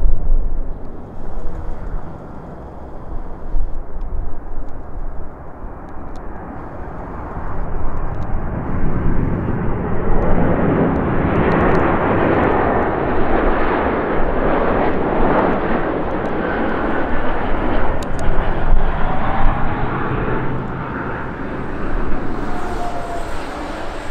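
Boeing 777-200ER's GE90 jet engines on final approach, the jet noise building over several seconds to a peak as the airliner passes close, then easing off with a faint engine whine near the end.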